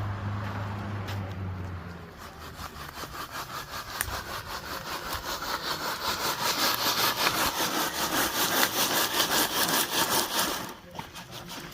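Quick, even rasping strokes, several a second, building louder and stopping abruptly near the end. A low steady hum is heard in the first two seconds.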